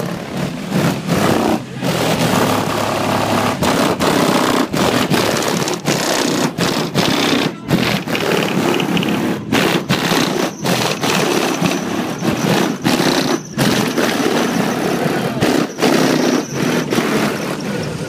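DC Audio Level 6 subwoofers in a Chevy Blazer playing bass at very high volume, heard from outside the truck. The sound overloads the microphone into a dense, distorted rumble that keeps cutting out for split seconds.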